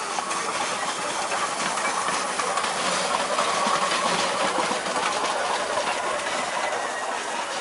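Oil-fired 3 ft gauge 4-4-0 steam locomotive built by Hugh Phillips Engineering rolling slowly past, with a steady hiss of steam and light clicking of the wheels on the track.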